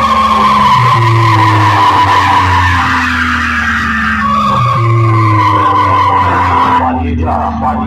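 Large DJ loudspeaker sound system playing a heavy-bass electronic effect track: a falling, gliding tone repeats about every four seconds over a steady deep bass.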